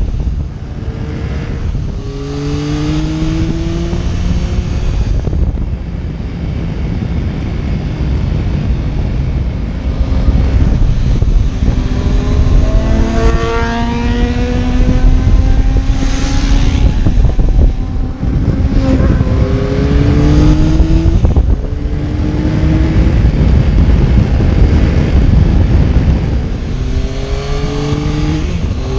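Motorcycle engine pulling hard and shifting up through the gears, its pitch climbing, dropping at each shift and climbing again several times, under heavy wind buffeting on the on-board microphone.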